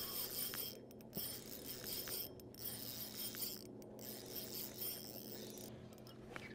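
Spinning reel being cranked, its gears giving a fine ratcheting whir that comes in spurts with brief pauses as line is wound in.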